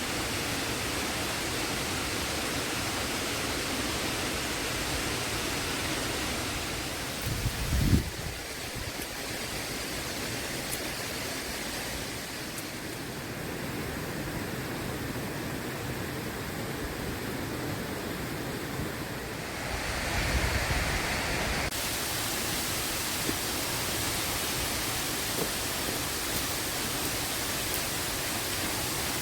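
Waterfall rushing steadily. A brief low thump comes about eight seconds in.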